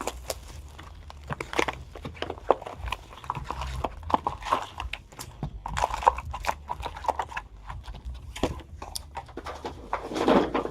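Packaging of a hockey card hobby box handled and opened by hand: irregular crinkling, taps and small rips of wrapper and cardboard as the second box is opened and its first pack pulled out.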